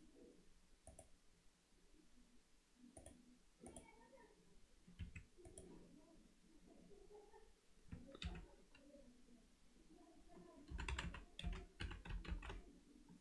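Computer keyboard and mouse: a few scattered single clicks, then a quick run of keystrokes near the end as a name is typed into a text field.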